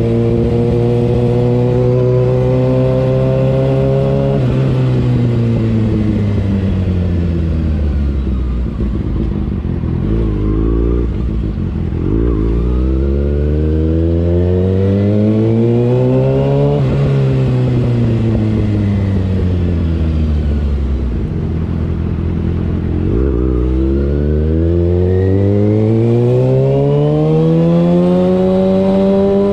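Kawasaki ZX-6R 636's inline-four engine under way. Its note holds steady for about four seconds, then falls as the bike slows, rises under acceleration, falls again and climbs once more near the end.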